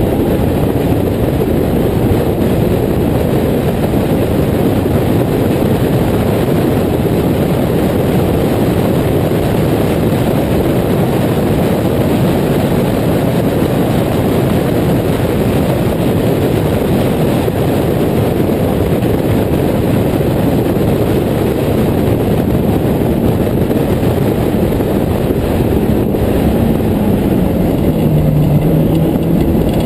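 Westfield clubman car's Honda S2000 four-cylinder engine running hard at speed, heard under heavy wind rush in the open cockpit. Near the end the engine note falls as the car slows for a corner.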